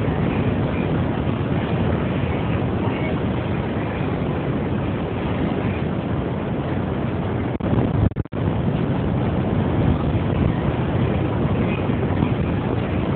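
Steady rushing noise with no clear pitch, cutting out twice very briefly a little past halfway.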